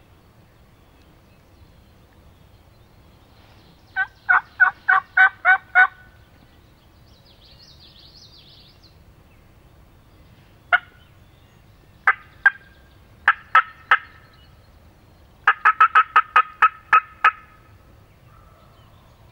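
Hunter's turkey call sounding hen talk to draw in a gobbler: a run of about eight evenly spaced yelps, then a few single and paired notes, then a fast string of sharp cutts near the end.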